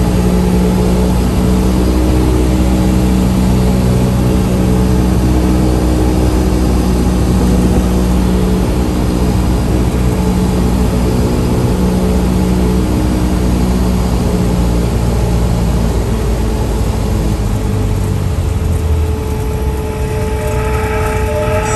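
Cessna 172S's Lycoming IO-360 four-cylinder engine and propeller running steadily at reduced power on final approach, heard from inside the cabin with wind noise. The engine note drops in the last few seconds as power comes back to idle for landing. Near the end a steady high horn tone starts, the stall warning sounding in the flare.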